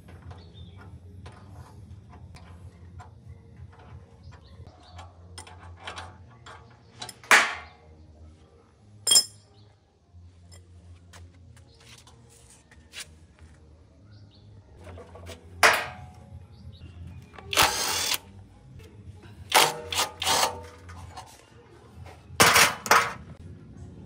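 Workshop tool work: a run of small clicks and knocks, broken by several short, loud bursts of a power tool, over a low steady hum.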